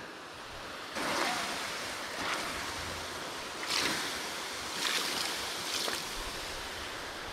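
Steady rushing of a mountain river, with a few brief soft swells of noise over it.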